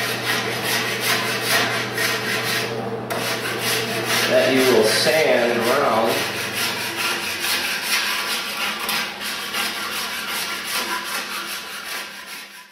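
Small hand block plane shaving a wooden paddle blank in repeated strokes, the blade scraping and rasping along the grain, fading out near the end.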